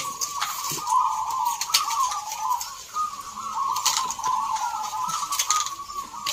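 Many zebra doves cooing at once, their overlapping calls merging into a continuous, wavering chorus, with scattered sharp clicks over the top.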